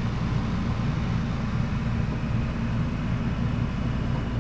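LG 8,000 BTU window air conditioner running: a steady low hum with an even fan hiss over it.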